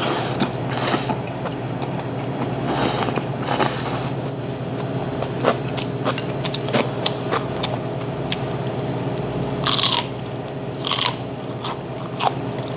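Close-miked slurping of noodles from a bowl of soup, several hissing slurps, with wet chewing and lip-smacking clicks in between.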